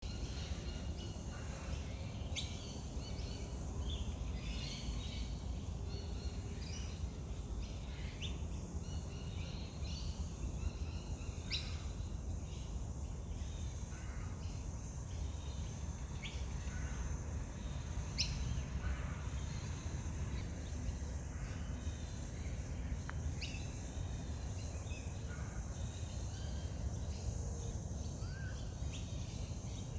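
Small birds chirping and calling on and off, with a few sharp high chirps, over a steady low background rumble.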